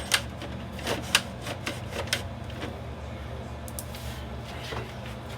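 Sharp plastic clicks and knocks from an iRobot Roomba 675 robot vacuum being turned and pushed by hand onto its charging dock: a quick run over the first two seconds and two fainter ticks near four seconds, over a steady low hum.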